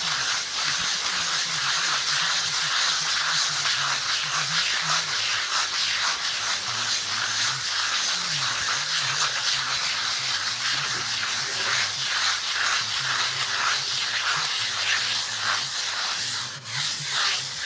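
A float rubbed over fresh lime render in quick repeated strokes, a continuous gritty scraping hiss as the top coat is floated up.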